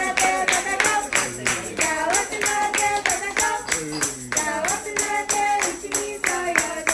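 A group singing a birthday song to a tambourine struck on the beat, about four to five strokes a second.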